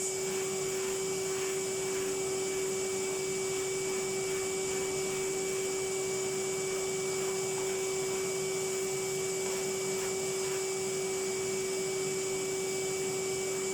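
Vacuum cleaner running steadily at a constant pitch, a steady hum with a fainter high whine over its airflow hiss.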